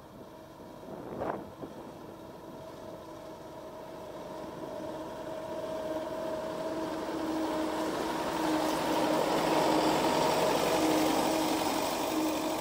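Niva SK-5 combine harvester running as it cuts wheat, a steady machine hum that grows louder as it approaches and passes close.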